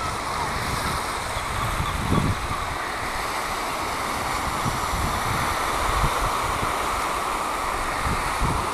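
Small waves washing onto a sandy shore in a steady hiss, with wind buffeting the microphone in low gusts, strongest about two and six seconds in.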